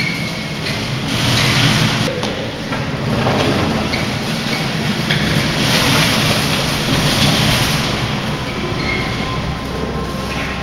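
Longboard and shopping-cart wheels rumbling and rattling steadily over the concrete deck of a parking garage, with a brief high squeak near the start and again near the end.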